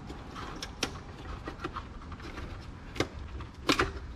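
Hand tools working on a car, making a series of irregular clicks and knocks against metal over a low steady hum; the loudest knocks come in a quick cluster near the end.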